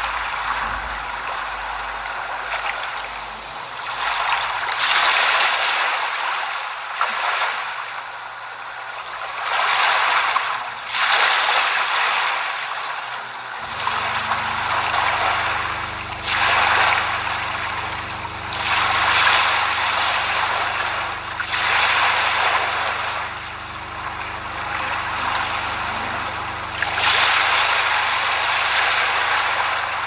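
Sea waves washing onto a beach, the surf noise swelling and falling back every few seconds. About halfway through, a steady low hum starts and stays underneath the surf.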